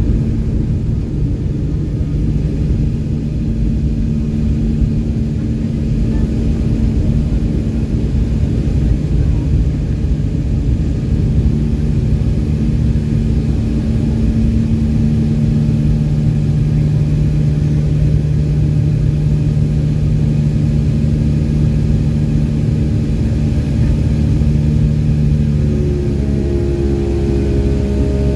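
Boeing 757's Rolls-Royce RB211 engines heard from inside the cabin, a loud steady rumble with a low hum, as the jet takes off or climbs. Near the end a new, higher hum joins in.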